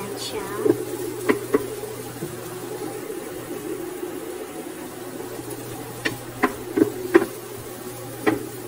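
Wooden spatula stirring chopped onions in a nonstick frying pan with little oil, knocking sharply against the pan a few times near the start and in a run of knocks from about six seconds on, over a steady low buzz.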